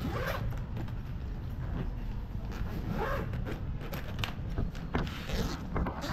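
Zipper on a hard-shell suitcase being pulled along the case, in several short scratchy runs, with light knocks of the case being handled.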